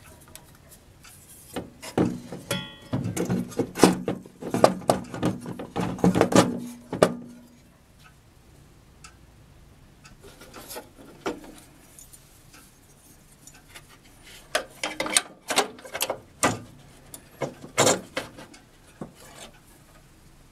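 Handling noise as model boilers are fitted into a brass hull: clusters of knocks, clicks and rubbing of metal and wood, in two spells of several seconds each with a quiet lull between, the first with a low hum beneath it.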